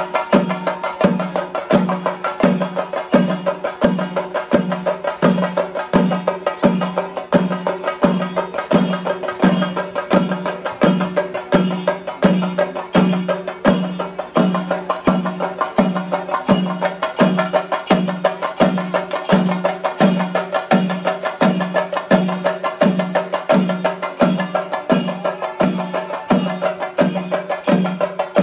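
Chenda drum ensemble with brass hand cymbals playing a steady ritual rhythm: a heavy beat a little more than once a second, with fast stick rolls and ringing cymbals between.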